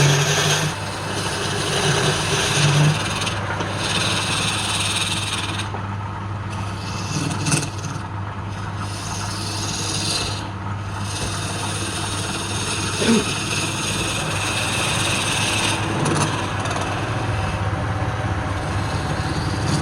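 Woodturning lathe running with a steady hum while a cutting tool rubs against the spinning wood in stretches of a few seconds, lifting off briefly now and then.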